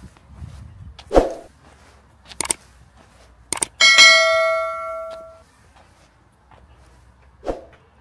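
A few sharp knocks, then a single metallic ding that rings out with several overtones and fades over about a second and a half, followed by one more knock near the end.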